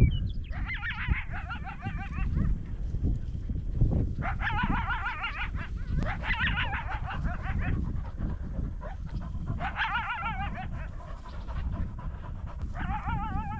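Coyote calling in five wavering, warbling bouts of about a second and a half each: yip-howls from a coyote that is stalking the hunter and his dogs. Wind rumbles on the microphone underneath.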